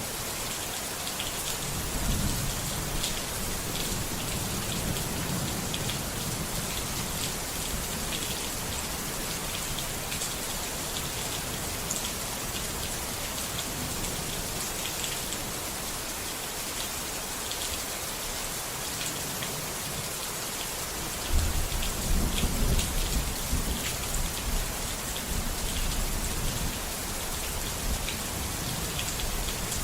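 Steady rain with patter of drops, and low thunder rumbling, loudest in a sudden rumble about two-thirds of the way through.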